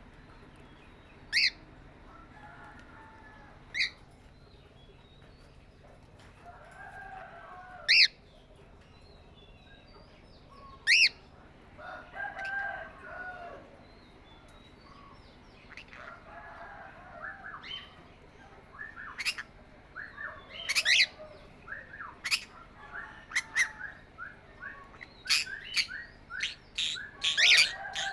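Pet parrots calling: single loud, sharp shrieks every few seconds with softer chattering between them, then rapid chirping that grows busier over the last ten seconds.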